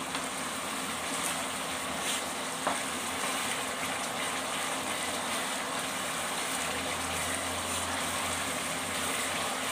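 Onion, tomato and ginger masala paste sizzling steadily in hot oil in a kadai while a spatula stirs through it, with a few light clicks in the first few seconds. It is being fried until the oil separates from the masala.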